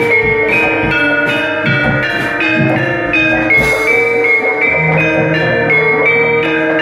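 Javanese gamelan playing: bronze metallophones sound a quick, continuous run of bell-like struck notes over low drum strokes.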